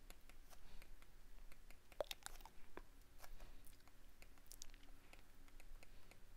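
Faint, irregular taps and clicks of a stylus writing on a tablet's glass screen.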